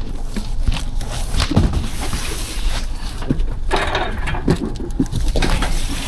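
Cardboard mattress boxes being shoved off a cart and slid onto a cargo van's floor: scraping and sliding with several knocks.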